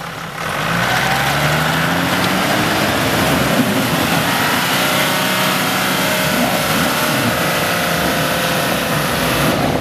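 Toyota Land Cruiser 80's engine revving up about half a second in and held at high revs under load, its tyres spinning and churning in deep mud.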